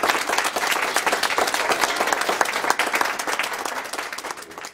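Audience applause, many hands clapping, fading out near the end.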